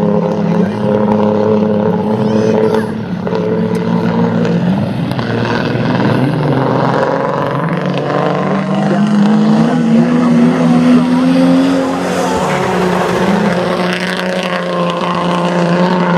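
Six-cylinder speedway sedans racing on a dirt oval, their engines running hard. The engine note climbs about halfway through and drops back about three-quarters of the way in as the cars come off the throttle into a turn.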